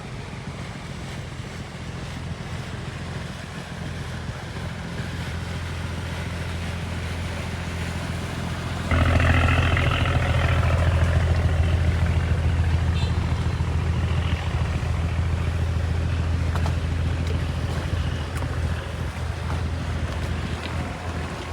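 Boat engine running steadily with a low hum, under wind and water noise. The engine sound steps up suddenly about nine seconds in and stays louder.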